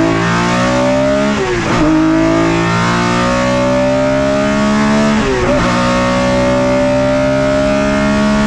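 BMW M1 race car's straight-six engine heard from inside the cockpit, accelerating hard: the pitch climbs steadily in each gear and drops sharply at two upshifts, about a second and a half in and about five seconds in.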